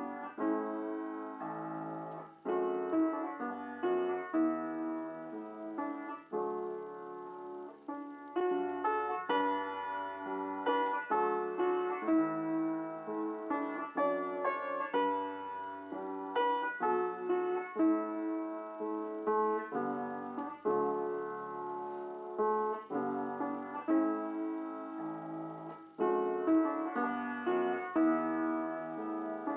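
Solo piano music: a slow melody over sustained chords.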